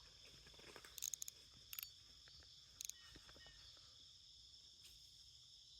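Faint, steady high-pitched insect chorus, with a few sharp clicks about one, two and three seconds in.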